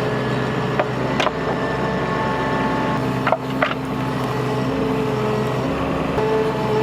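Bobcat mini excavator's diesel engine running steadily while it digs, with a few sharp clanks about a second in and again around three and a half seconds in.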